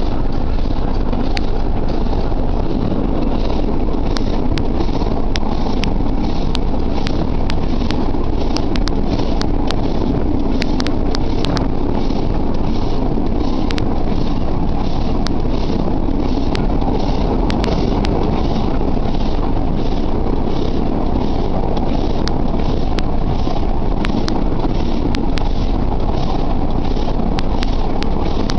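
Narrow-gauge steam train running, heard from aboard: a steady rumble of wheels on rail with many sharp clicks, and a regular pulsing about twice a second.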